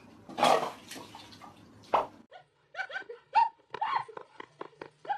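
A dog giving a noisy huff or bark, then a quick run of short, high yips.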